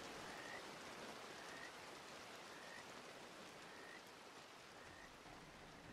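Faint rain ambience, a steady hiss of rainfall, with a short high chirp repeating about once a second. It slowly fades out.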